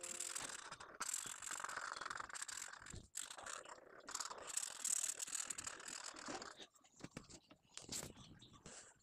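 Faint, irregular scratching of a felt-tip marker pen on paper as a drawing is coloured in, thinning to a few scattered clicks near the end.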